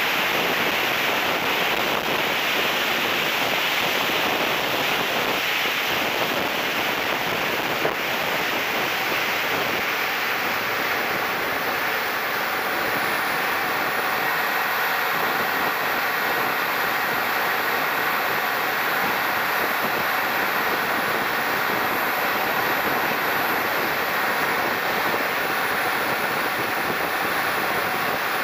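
Steady rush of air over an onboard camera on a turbine-powered RC jet in flight, with the thin high whine of its 100 N-class jet turbine that shifts in pitch a few times.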